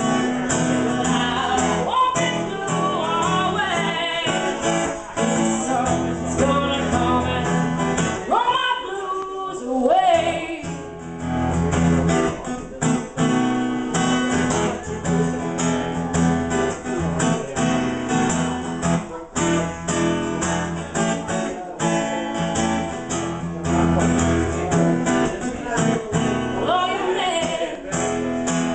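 Live acoustic blues: a woman singing while strumming an acoustic guitar, her voice coming in phrases over a steady strummed rhythm.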